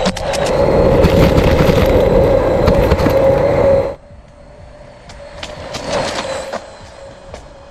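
Radio-controlled model van driving on a gravel path: its motor whines steadily while the tyres crunch and grit clicks under them. The sound drops away suddenly about four seconds in, then goes on more faintly from farther off, swelling briefly around six seconds.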